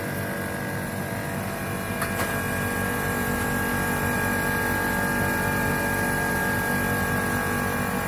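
Hermetic refrigeration compressor running with a steady hum, just started after the cracked copper line was brazed and the system charged with refrigerant through the gauge manifold. A thin, steady high whistle joins about two seconds in.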